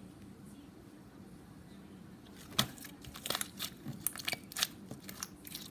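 Clear slime being squished and worked by hand, with trapped air bubbles popping in a quick, irregular run of sharp clicks and crackles. They start about two and a half seconds in.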